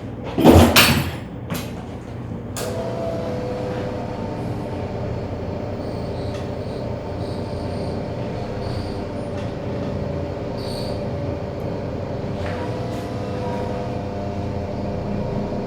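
A loud clatter and a couple of sharp clicks near the start, then an electric massage tool's motor running steadily with a whine, used to soften the muscles before adjustment.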